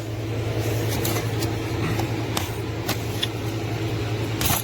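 Scattered light clicks and taps of a plastic storage case being handled, over a steady low hum, with a louder click near the end.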